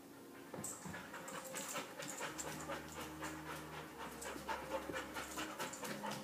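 Dog panting rapidly, a quick even run of breaths at about four a second, starting about half a second in.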